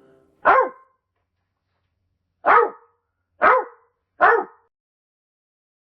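Dog barking four times: a single bark, then after a pause three more in quick succession.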